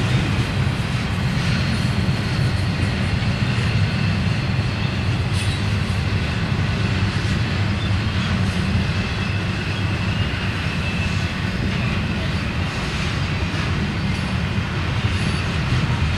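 Loaded double-stack intermodal well cars rolling past at speed: a steady, even rumble of steel wheels on the rails, with a faint high squeal now and then.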